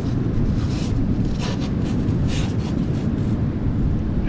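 Strong wind buffeting the microphone: a steady low rumble, with a few brief hisses about half a second, a second and a half and two and a half seconds in.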